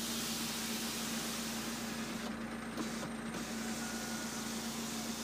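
2013 Vauxhall Zafira's electric window motor running, winding the glass, a steady hum inside the cabin.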